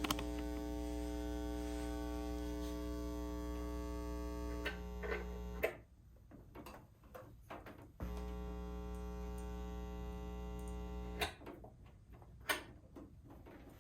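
Carver TFM 4.0 power amplifier's mains buzz through the speakers: a steady low buzz with many evenly spaced overtones. It cuts off about six seconds in, comes back about two seconds later and cuts off again about eleven seconds in, with faint clicks. The buzz is a fault that keeps going with the amplifier's power switch off; the seller lists the amplifier for parts as needing a recap.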